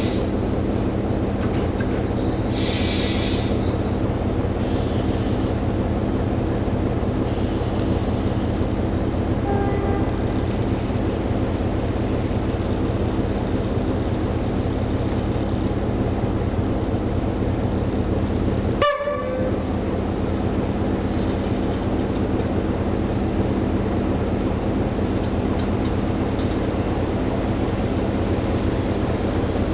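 Diesel train engine running steadily, a low hum at an unchanging pitch, with a single sharp click a little past halfway through.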